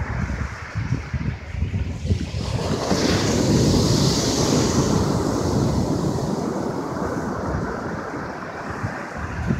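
Ocean surf breaking on a sandy beach: a wave crashes about three seconds in and its foam hisses up the sand, then slowly fades. Wind noise on the microphone underlies it.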